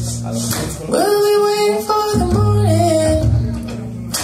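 Recorded music playing over a pair of Apertura Edena floorstanding loudspeakers: a singing voice holding long, gliding notes over guitar and bass.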